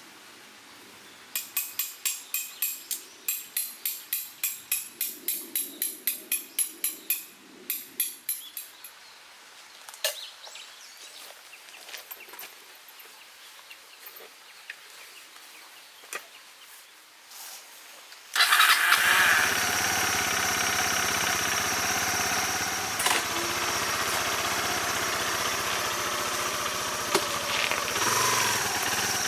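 A run of high, evenly spaced chirps, about three a second, for some seven seconds; then, about two-thirds in, a Kawasaki 250TR's single-cylinder motorcycle engine starts suddenly and keeps running steadily.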